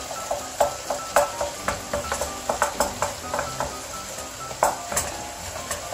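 Chunks of salmon with chopped peppers and tomatoes sizzling in a frying pan while wooden spatulas stir and break them up, with irregular short scrapes and knocks of wood against the pan, a few a second.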